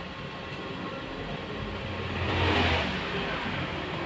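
A motor vehicle passing by, its sound swelling to a peak about two and a half seconds in and then fading, over a steady background rumble.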